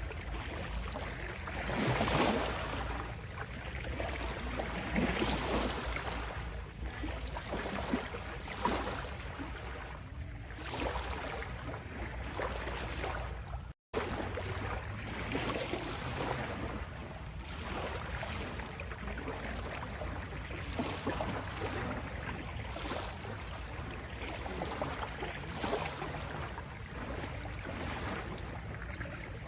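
Small sea waves lapping and rippling on a shore, in gentle irregular swells a few seconds apart. The sound cuts out for a split second about halfway through.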